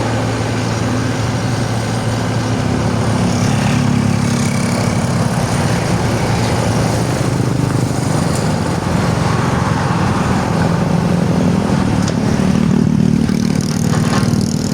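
Excavator's diesel engine running steadily under working load, its note shifting up and down as the machine works, rising somewhat about ten seconds in.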